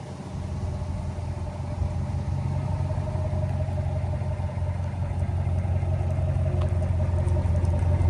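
2009 Ram 1500 pickup's freshly rebuilt engine idling with a steady low hum. The sound comes up within the first half second and then holds even.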